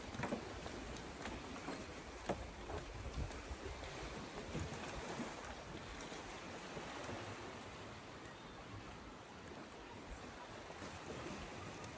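Footsteps on a grated walkway, sharp clicks about one a second for the first few seconds, over a steady rushing outdoor background noise.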